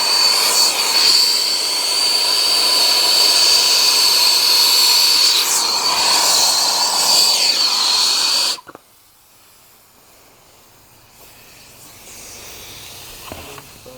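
Pressurized gas rushing out of an air-conditioner evaporator coil in a loud steady hiss with a whistling tone, as the coil is let down and blown clear of leftover oil. It cuts off suddenly about eight and a half seconds in, leaving only a faint background.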